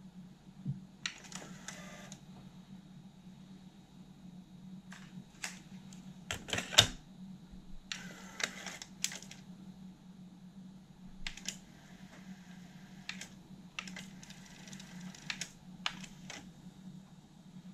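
Sony TC-K611S three-head cassette deck being worked through its transport functions: front-panel buttons clicking, the cassette door ejecting and shutting, and short whirs as the mechanism engages, over a faint steady low hum. The mechanism is running on freshly fitted drive belts and is quiet, with no motor-bearing noise.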